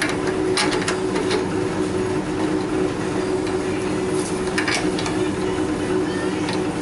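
Scroll-chuck key clicking and grating in a wood lathe's chuck as the jaws are tightened onto a wood blank: a few sharp metallic clicks near the start and another cluster past the middle, over a steady machine hum.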